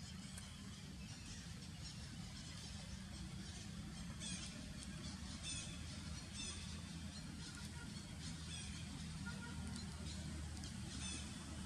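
Outdoor ambience: a steady low rumble, with a few short, faint, high warbling bird chirps scattered through it.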